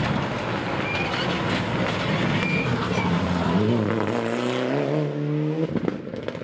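Mitsubishi Lancer Evolution rally car's turbocharged four-cylinder engine passing close by at speed, then a rising, wavering engine note as it accelerates away out of the corner. The note drops off abruptly near the end, followed by a few sharp cracks.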